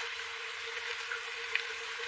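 Steady background hiss with a faint steady hum and a single light tick about one and a half seconds in.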